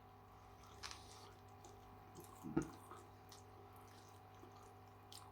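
Faint chewing and wet mouth sounds of a man eating a chicken wing, with a few small clicks and one louder soft sound about two and a half seconds in.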